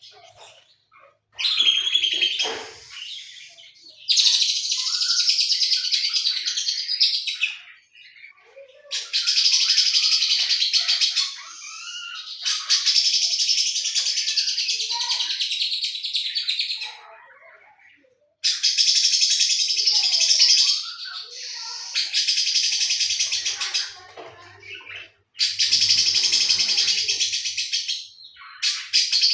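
Lovebird singing long bouts of very rapid, high chattering trills, the 'mesin jahit' (sewing-machine) style of song, with cililin-like phrases worked in. There are about eight bouts, each lasting two to four seconds, with short pauses between them.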